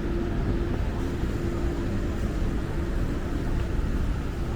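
City street ambience: a steady low rumble of motor traffic, with a steady hum through the first half that fades out about halfway.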